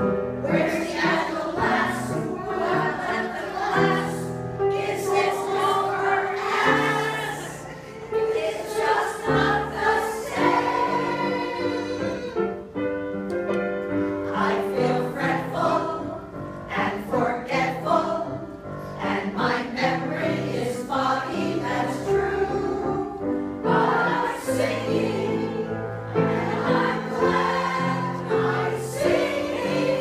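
Group of women singing a song together as a small choir, in sustained phrases with short breaks between them.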